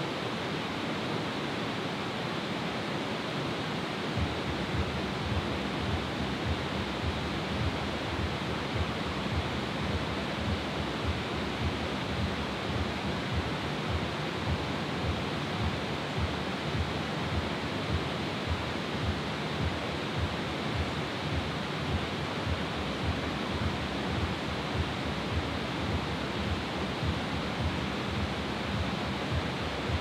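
Steady rush of fast-flowing water. From about four seconds in, regular low footstep thuds come at a walking pace, a little under two a second.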